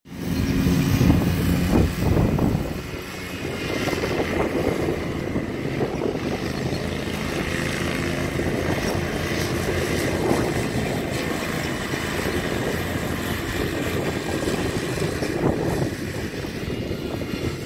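Engine of a large riding lawn mower running steadily while it cuts grass across the park lawn, with a louder low rumble in the first couple of seconds.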